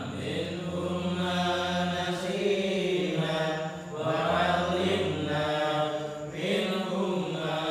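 A group of men chanting an Islamic devotional recitation in unison, in sustained phrases of about two seconds with brief breaks between them.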